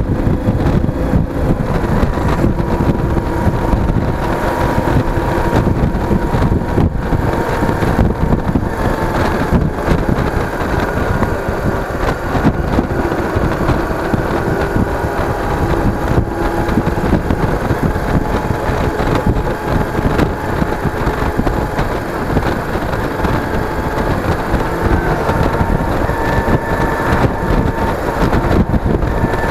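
Yamaha DragStar Classic's V-twin engine running at a steady cruise while the motorcycle is ridden along the road, mixed with wind buffeting on the microphone. No sharp revving or gear changes stand out; the engine note drifts only slightly.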